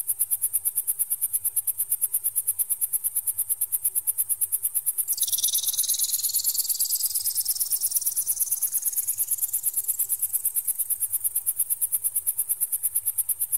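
Electronic bird-repeller sound meant to scare off magpies: a rapid, very high-pitched pulsing tone. About five seconds in, a sweep joins it and rises steadily in pitch for several seconds.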